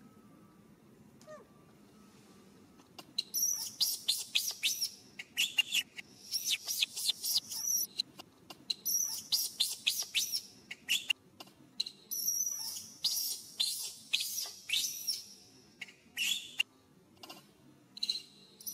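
Newborn baby macaque screaming: rapid runs of short, shrill squeals that start about three seconds in and go on in bursts with brief pauses. These are the distress cries of an infant being pulled about by the arm by its mother.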